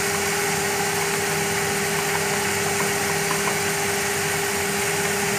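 A steady machine hum with one constant tone over an even hiss, unchanging throughout.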